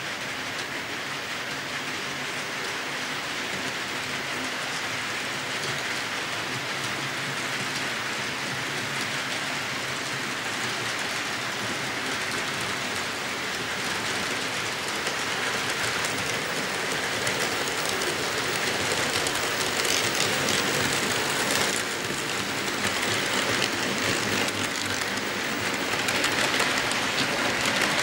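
HO scale model freight train rolling along the layout track: a steady rushing of the small metal wheels on the rails. It grows louder from about halfway through as the locomotives and hopper cars come closer.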